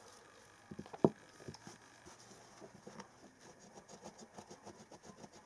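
Light, fast scratching as the tip of a fire-steel striker scrapes a piece of tinder card to fluff it up for catching sparks, after a couple of faint clicks about a second in.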